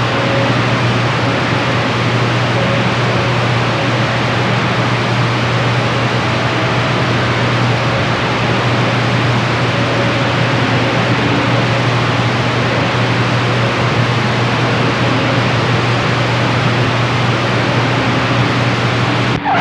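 Steady hiss of radio static from a receiver on the 27.025 MHz freeband channel, with a low steady hum under it, between transmissions. It cuts off at the very end as a voice comes on.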